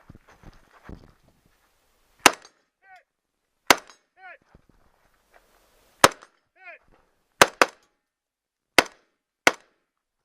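Seven gunshots fired at an uneven pace on a steel-target stage, two of them in quick succession near the middle. A short ringing ping follows each of the first three shots, the sound of steel targets being hit.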